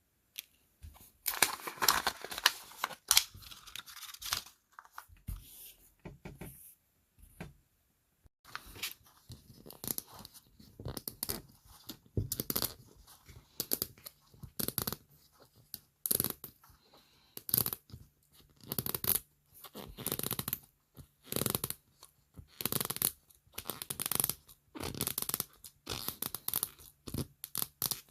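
Small toy wrappers being torn open and unwrapped by hand: a run of short ripping and crinkling sounds, thick at first, then coming about once a second.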